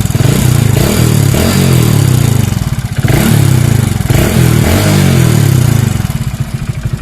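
Hero HF Deluxe BS6's single-cylinder engine revved in several throttle blips, then dropping back to idle about six seconds in. A clattering comes from inside the engine: a loose timing chain and loose tappets.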